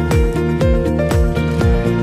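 Background music with a steady kick-drum beat, about two beats a second, under sustained pitched notes.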